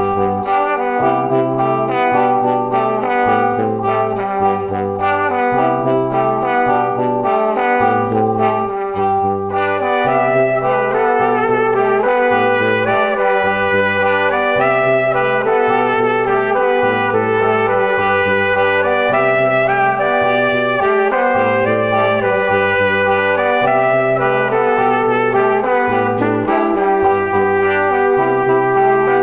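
Instrumental background music with brass over a bass line that steps from note to note.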